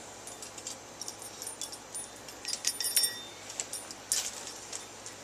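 Light metallic clinking and jingling: scattered small clinks, a quick run of ringing clinks between two and a half and three seconds in, and one more sharp clink just after four seconds.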